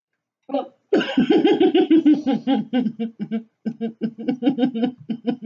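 A woman laughing hard: a long run of quick, rhythmic ha-ha pulses starting about a second in.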